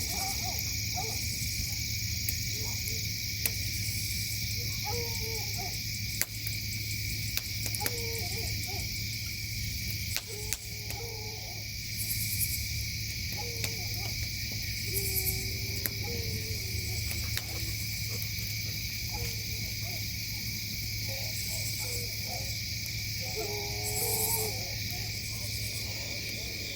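Night chorus of crickets and other insects: a steady high trilling, with a few louder rasping pulses about 12, 15 and 24 seconds in. Short low calls come and go over it several times, gathered most thickly near the end.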